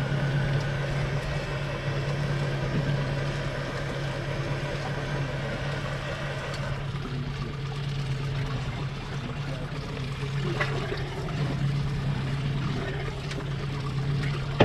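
Boat engine running steadily at an even pitch, with a constant noisy rush over it; a sharp knock right at the end.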